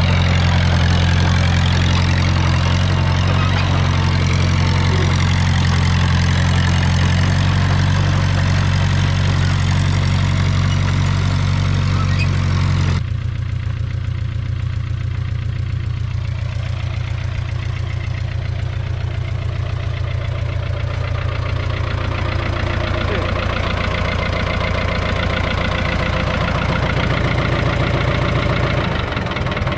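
Fiat 411C crawler tractor's four-cylinder diesel engine running steadily. About 13 seconds in the sound drops abruptly, and the engine carries on more quietly at an even idle.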